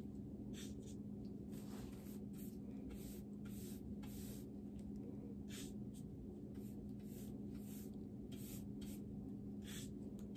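Angled paintbrush dipped in a cup and drawn across a primed drawer front, laying on chalk paint: a string of short, faint bristle swishes over a steady low hum.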